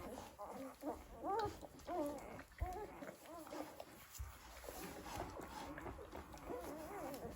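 Several Bernese mountain dog puppies squeaking and whimpering, many short cries overlapping, each rising and falling in pitch.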